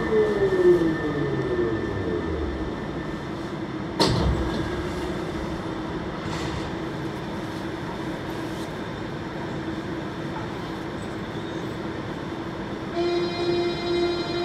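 Siemens VAL 208 rubber-tyred metro train running through a tunnel, heard from on board. Several motor tones fall in pitch over the first two seconds as it pulls away from the station, then give way to a steady hum over the running noise. A sharp knock comes about four seconds in, and a new set of steady, slightly pulsing tones joins near the end.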